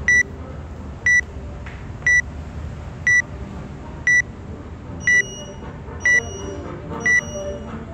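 Workout countdown timer beeping: short high beeps, one each second, counting down to the start of a timed workout. From about five seconds in the beeps turn brighter, with higher tones added.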